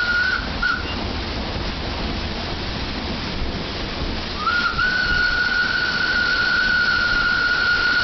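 WP class steam locomotive whistle: two short toots at the start, then a long, steady blast from just past halfway to the end, over a steady hiss.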